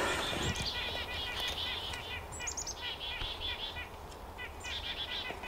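Black-capped chickadees calling in quick runs of short, high notes, mobbing a roosting barred owl.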